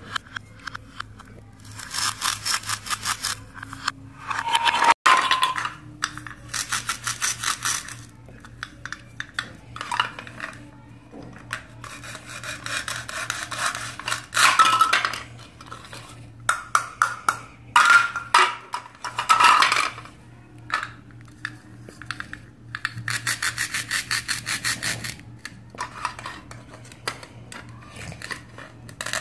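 Plastic toy knife sawing through velcro-joined plastic toy fruit and vegetable halves on a plastic cutting board: repeated bursts of fast rasping strokes, each a second or two long and a few seconds apart, with light clicks and knocks of plastic pieces in between.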